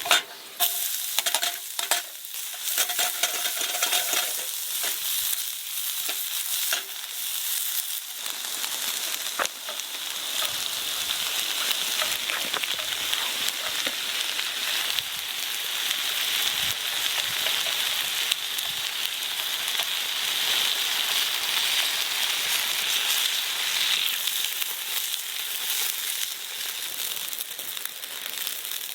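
Food frying and sizzling steadily in a pan, with clicks and scrapes of a utensil stirring it during the first several seconds.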